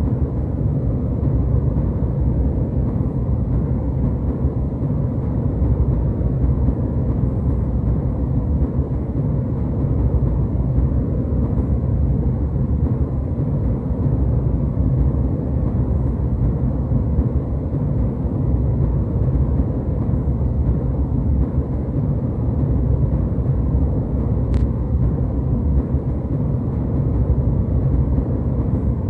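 Steady low drone of a jet airliner cabin in flight: even engine and airflow noise, heaviest in the bass, with no change in level.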